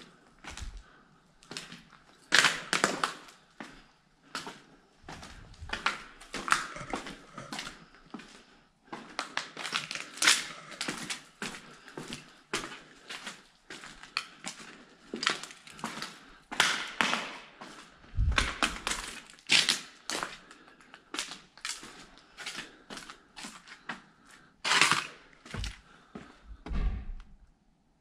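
Irregular rustling, scraping and knocking: handling noise from a camera being carried about, with a few dull thumps in the second half.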